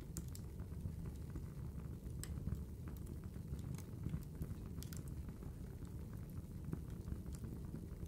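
Wood fire crackling in a fireplace: irregular sharp pops and snaps over a low, steady rumble.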